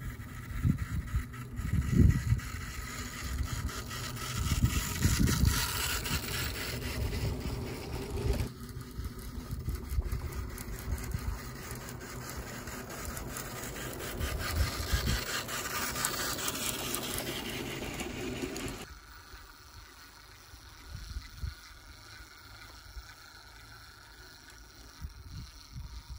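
Wind gusting on the microphone with irregular low buffeting over a rustling hiss, which falls away abruptly about two-thirds of the way in to quieter outdoor ambience with a few soft knocks.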